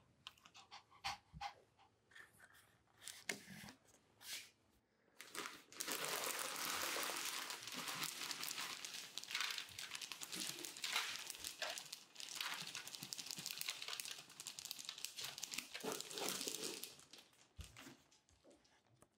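Cat litter pellets poured from a plastic bag into a foil litter tray: a dense, steady dry rattle lasting about eleven seconds, starting about five seconds in. Before it, a few scattered clicks and crinkles of the bag.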